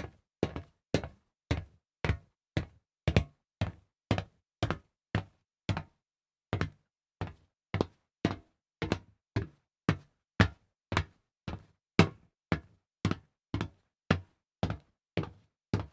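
Footsteps on solid metal at a steady walking pace of about two steps a second, each a sharp, hard impact, with a slightly longer pause about six seconds in.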